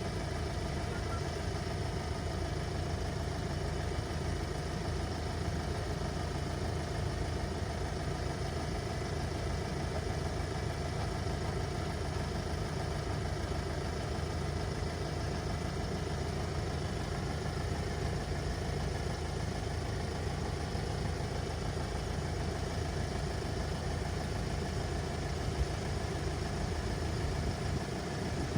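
An engine idling steadily: an even, unchanging low hum.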